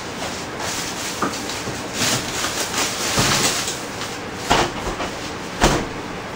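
A steady fan whoosh with several knocks and clatters over it, about four in all, as cupboard or freezer doors and items are moved by someone rummaging for food.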